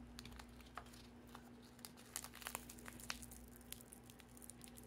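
Faint, scattered small clicks and crinkles from hands working a putty-like slime and its container, over a steady low hum.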